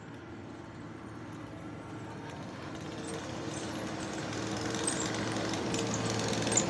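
Skid steer engine running steadily, growing louder as the machine comes closer.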